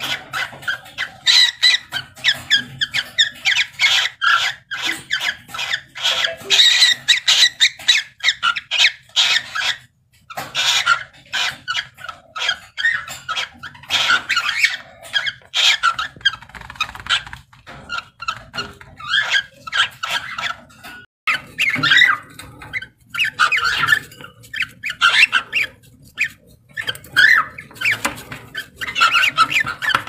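A pair of lutino cockatiels mating, giving a rapid string of short, squeaky chirps, with brief pauses about ten and twenty-one seconds in.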